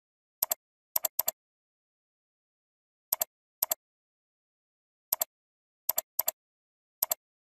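Computer mouse clicks, nine in all and irregularly spaced, each a quick press-and-release double tick, with dead silence between them.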